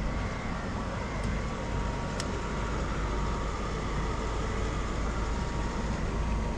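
Road traffic crossing a concrete bridge overhead: a steady low rumble with a vehicle passing, swelling a little in the middle, and a few faint ticks.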